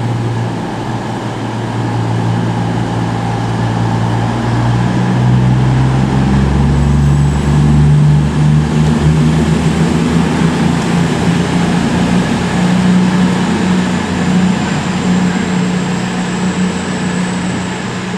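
Underfloor diesel engines of a CrossCountry Class 220 Voyager diesel-electric multiple unit running, their note rising about five seconds in as they power up to pull the train out, then holding steady.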